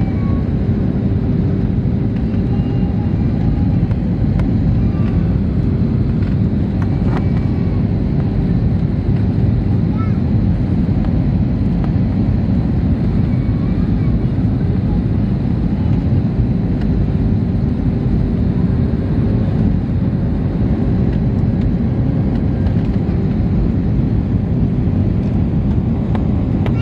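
Airliner cabin noise on approach: a steady low roar of engines and airflow with a constant hum.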